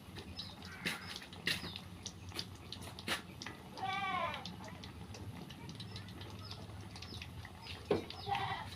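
A goat bleats once, about four seconds in, over a few sharp clicks and knocks.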